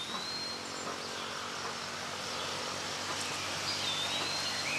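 Outdoor treetop ambience: a steady hiss of insects and rustling leaves, with a thin, high whistled bird note near the start and again near the end.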